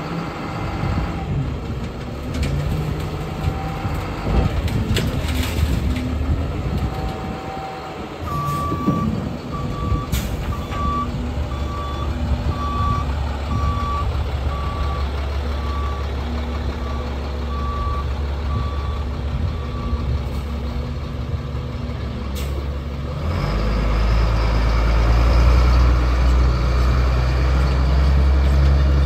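2003 Freightliner FL80 dump truck's diesel engine running steadily, with its backup alarm beeping about once a second for some twelve seconds while the truck reverses. A short air-brake hiss comes a little after two-thirds of the way in, and the engine then pulls harder and louder as the truck drives off.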